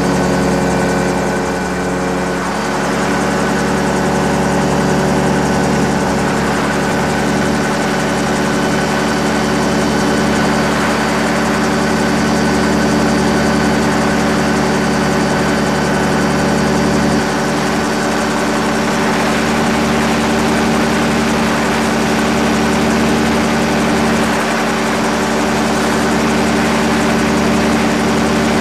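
Rotax 532 two-stroke twin-cylinder engine and propeller of an AC-4 gyrocopter running steadily in flight, heard from on board.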